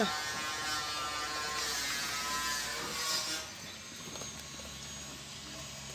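A steady buzz made of many even tones, which stops about three and a half seconds in and leaves a faint hiss.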